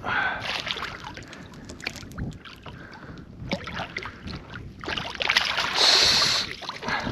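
Clattering knocks and water splashing from a caught redfish being handled alongside a kayak, with a louder burst of splashing about six seconds in.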